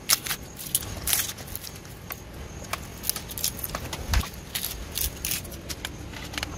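Fingers pulling apart crisp grilled fish, with light, irregular crackles and scratches over a low rumble.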